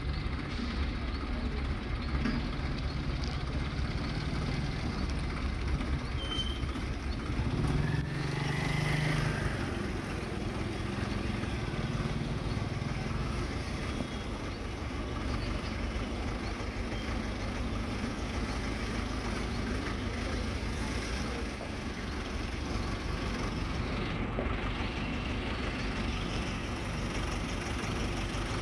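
Steady low rumble of idling vehicle engines, louder for a couple of seconds about eight seconds in.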